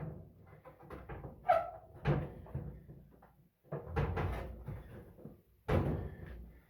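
Clunks and knocks of a clothes dryer's sheet-metal panels being handled and fitted back in place during reassembly, with three main knocks about two, four and six seconds in.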